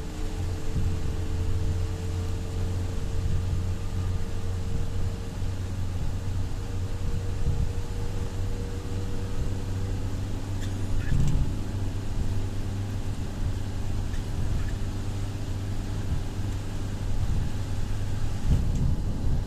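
Steady low rumble with a faint motor hum, like a vehicle engine running, over a light even hiss; a few faint ticks come about halfway through and near the end.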